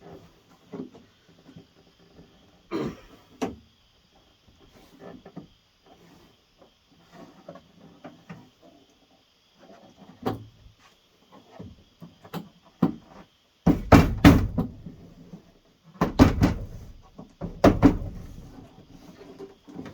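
Irregular knocks, thumps and rubbing as a new window gasket is pushed and worked into a pickup truck's door, with three bursts of loud thumping in the second half.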